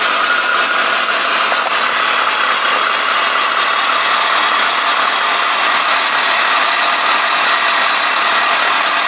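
Chevrolet Niva's four-cylinder petrol engine idling steadily under the open hood. It is being run to purge the air lock from the cooling system after a pump-type coolant heater has been plumbed in.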